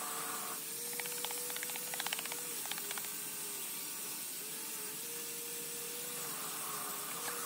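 Metal putty knife scraping and tapping body filler and hardener on a plastic mixing sheet: a quick run of short clicks about a second in that stops after about two seconds, over a steady hiss and a low wavering tone.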